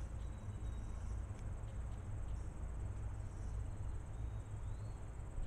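Insects trilling in a steady high-pitched drone, with a steady low rumble underneath, as picked up by a trail camera's microphone.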